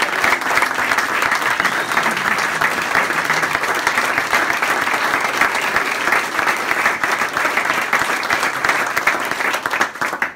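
An audience clapping in sustained applause, dense and steady, which cuts off abruptly near the end.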